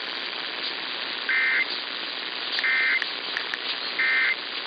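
Emergency Alert System end-of-message tones: three short bursts of warbling SAME data, evenly spaced about 1.3 seconds apart, over a steady hiss of radio static. They mark the close of the tornado warning broadcast.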